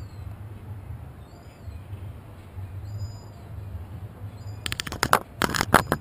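Gull pecking and knocking at the GoPro camera housing: a low steady rumble, then from about five seconds in a quick run of sharp taps and knocks close to the camera.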